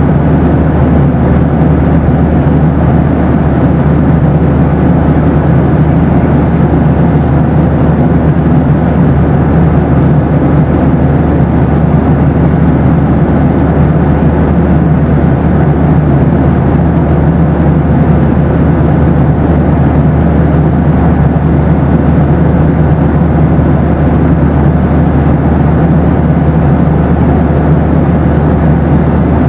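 Boeing 737 airliner's steady in-flight noise: an even low roar with a few faint steady hums running through it, unchanging throughout.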